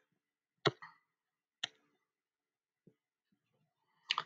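A few sharp, separate computer mouse clicks, about a second apart, with a quick pair near the end, as the pen colour is chosen in a colour-picker dialog.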